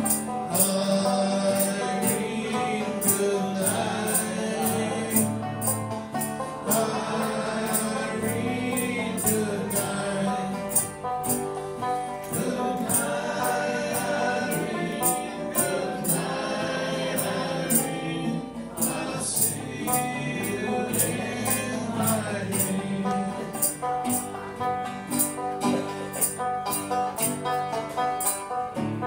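A small acoustic band playing and singing a sing-along song: a banjo and guitars strumming under voices singing, kept in time by a steady tapped beat about twice a second.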